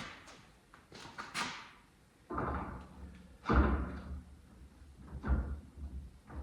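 Light metal clinks, then three heavy dull thumps, the middle one loudest: a steering wheel being fitted onto a tractor's steering shaft.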